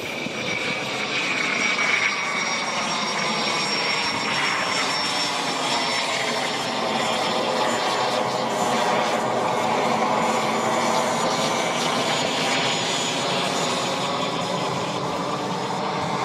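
Twin Williams FJ44 turbofans of a Cessna Citation CJ1 business jet whining as it rolls along the runway after landing and passes by. The sound swells in the first second or two, then holds steady, and its high whine falls slightly in pitch as the jet goes past.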